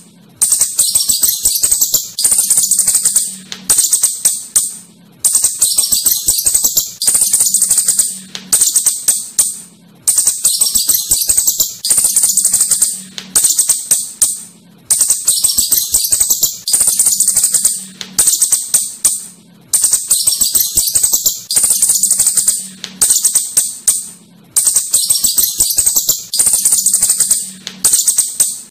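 Asian house shrew giving high-pitched, rapid clicking chatter in bursts of a second or two, with brief breaks between them, repeating over and over.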